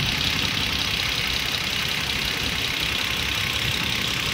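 Toyota Avalon engine idling steadily under the hood.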